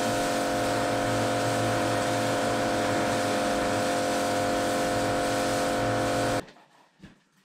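Kärcher high-pressure washer running steadily, its pump motor giving a constant multi-tone hum under the hiss of the water jet. It cuts off abruptly about six seconds in, leaving only faint small sounds.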